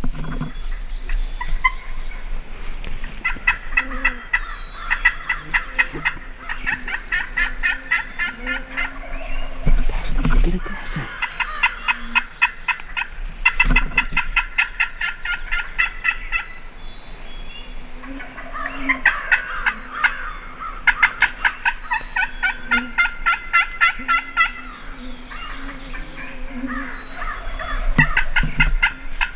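Wild turkeys calling: runs of rapid notes a few seconds long, repeated about five times with short gaps between them.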